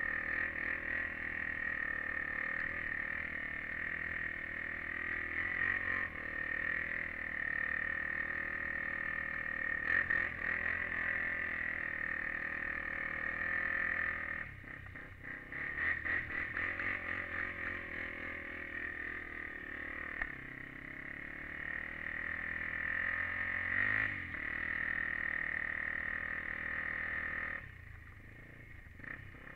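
Honda TRX400EX quad's single-cylinder four-stroke engine running under steady throttle, heard through a helmet-mounted camera. The note eases off briefly about halfway through and again near the end as the throttle is let off.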